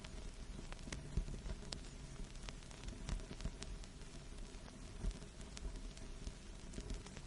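Vinyl record surface noise: a steady low hiss and rumble with scattered sharp clicks and pops at irregular intervals.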